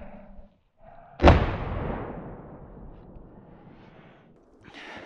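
A single shot from a muzzleloader rifle about a second in: a sharp report whose echo rolls away over the next two seconds. There are soft breaths just before the shot.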